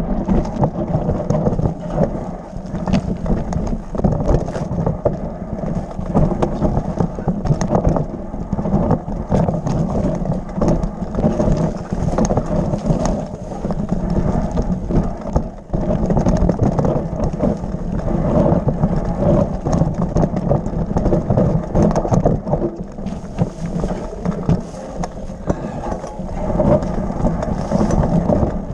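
Mountain bike riding down a rocky trail: a continuous rumble of tyres over stones and dirt, with frequent sharp clicks and rattles from the bike jolting over rocks.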